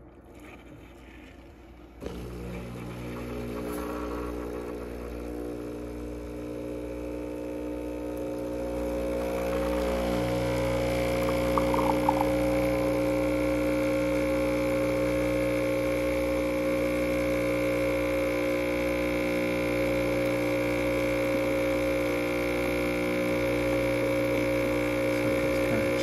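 Breville Barista Touch espresso machine's vibratory pump humming as it pulls an espresso shot. It starts suddenly about two seconds in, builds over the next several seconds, and runs steadily and louder from about ten seconds on.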